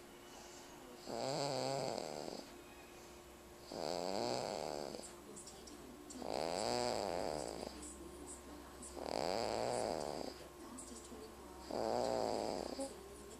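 Snoring in a steady rhythm: five long snores, one about every two and a half to three seconds, with quieter breathing between them.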